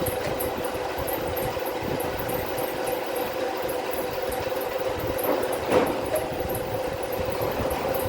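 A machine running steadily with an even hum, one short knock about six seconds in.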